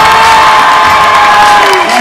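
A crowd cheering loudly after a winner is announced, with long, high-pitched held shouts over the din; one shout falls in pitch near the end.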